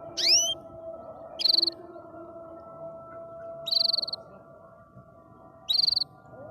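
Canary singing in short separate phrases: a quick rising whistle, then three brief trills spaced about two seconds apart. A steady hum runs underneath.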